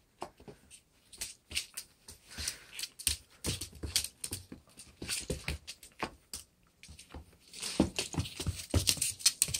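A German Shorthaired Pointer's claws and paws clicking and scuffling on a hard floor as it scrambles about playing with a rope toy: irregular clatter, busiest about eight seconds in.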